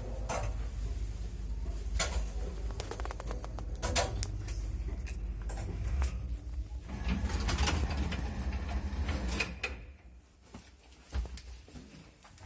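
A 1979 MLZ passenger lift travelling in its shaft, with a steady low hum and rumble and repeated squeaks and clicks from the car's guide shoes rubbing on the guide rails. About ten seconds in the running sound stops and only a few clicks follow, as the car comes to a halt.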